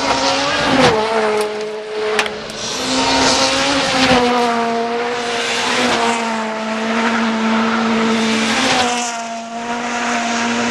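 Rally car engine held at high revs on a gravel forest stage. The pitch dips and climbs again a few times, like gear changes or lifts, over a hiss of tyres and gravel, with a few sharp cracks in the first four seconds.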